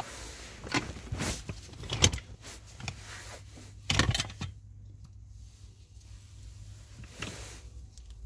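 Hands working on the blower-motor housing under a car's dashboard: a run of irregular clicks, knocks and scrapes of plastic and metal parts as a screw is fitted by hand, quieter after about four and a half seconds. A low steady hum runs underneath.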